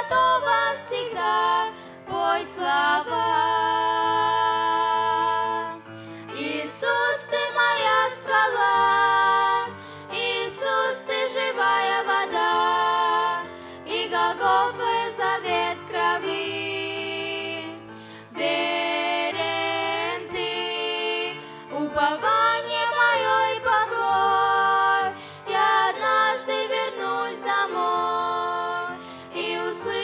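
Two girls singing a Russian Christian hymn in long, held phrases to grand piano accompaniment.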